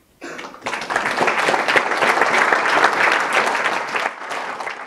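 Audience applauding: the clapping starts just after a moment's pause, swells to full within about a second, holds, and begins to fade near the end.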